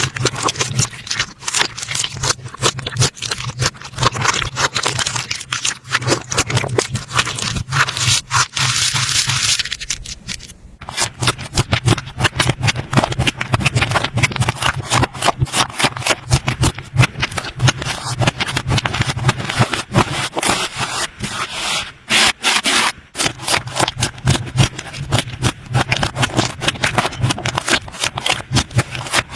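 Slime being squished and worked by hand, giving a dense, irregular run of crackling clicks and sticky scraping noises, with a brief lull about ten seconds in.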